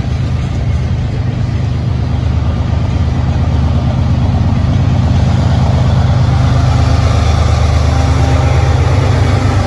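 Freight train passing: covered hopper cars rolling by with a loud, steady low rumble of wheels on rail, growing a little louder as the mid-train CSX diesel locomotives come alongside near the end.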